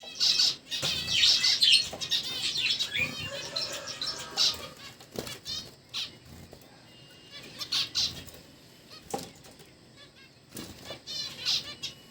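Small cage birds chirping in quick high calls, with bursts of wings flapping. The calls are busiest in the first few seconds and thin out to scattered calls after that.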